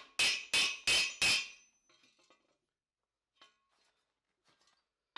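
Hammer blows on a steel cuirass plate held on an anvil: about five quick strikes in the first second and a half, each ringing metallically. A few faint clinks follow as the plate is handled.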